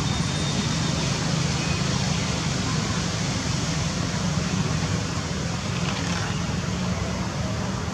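Steady outdoor background noise: a continuous low rumble with hiss above it, with no distinct events.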